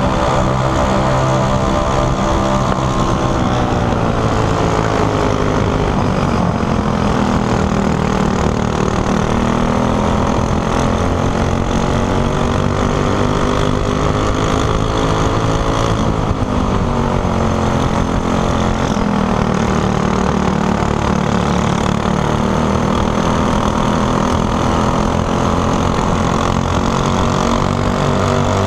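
Racing kart engine running hard on track, heard from on board, its pitch sliding down and climbing back up several times as the revs rise and fall through the corners.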